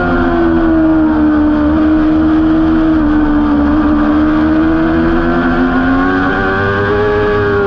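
Honda CBR600RR inline-four race engine heard from on board, held at high revs on steady throttle through a long corner. Its pitch sags slightly, then climbs again near the end, over a steady low rumble of wind on the microphone.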